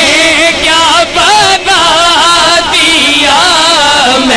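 Male voices singing a naat through microphones, a drawn-out melismatic line with wavering pitch, broken by a few short pauses for breath.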